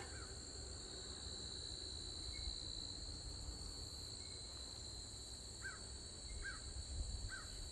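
Crickets chirping steadily and faintly, with three short falling chirps near the end, about a second apart.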